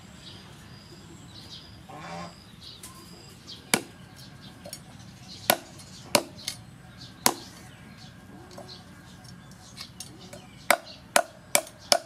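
Cleaver chopping down onto a wooden chopping block while trimming a whole red fish: sharp single chops a second or so apart, then a quicker run of four chops near the end.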